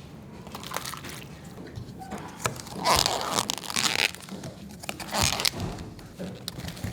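Irregular crunching, crinkling and scraping handling noises from kitchen work, loudest about three to four seconds in and again a little after five seconds.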